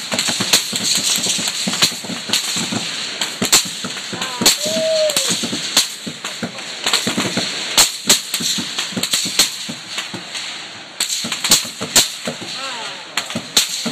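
Rapid rifle fire heard from downrange in the target pits: a fast, uneven string of sharp cracks from rounds flying past overhead, several a second, over a steady hiss.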